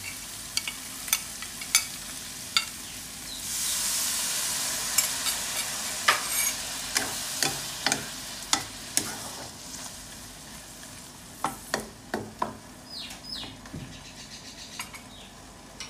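Prawns stir-frying in a hot pan, a wooden spatula scraping and knocking against the pan in quick strokes. About three seconds in, the premixed sauce hits the hot oil and a loud sizzle swells up, then slowly dies down as the sauce heats and the stirring goes on.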